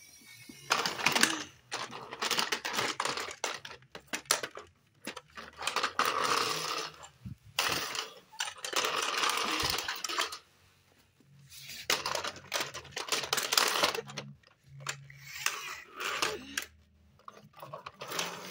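Plastic toy vehicles rattling and clattering as they are pushed and knocked about on a tile floor, in stretches of a second or two with short pauses between.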